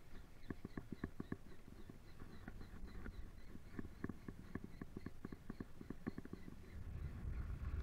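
Spinning reel (Shimano FX 1000) being cranked on a lure retrieve: a quick run of clicks and ticks, with a faint regular tick about four times a second, that stops about a second before the end. A low rumble rises near the end.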